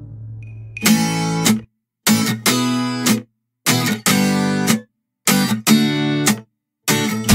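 Background music: strummed guitar chords in short stop-start phrases, each about a second long and cut off suddenly into silence.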